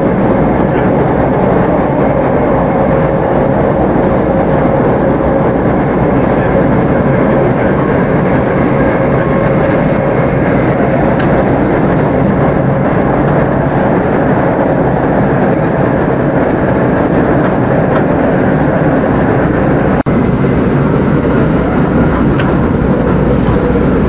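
Class 387 electric multiple unit running at speed, heard from inside the carriage: a steady rumble of wheels on rail, with a faint whine that fades away over the first few seconds.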